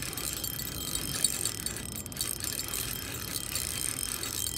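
Fishing reel clicking rapidly and steadily, the reel's ratchet working with a carp on the line.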